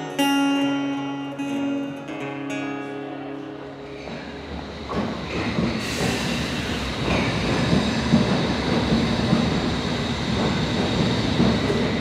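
Acoustic guitar music for the first few seconds. From about five seconds in, a London Underground train takes over: steady wheel rumble on the rails with a continuous high squeal.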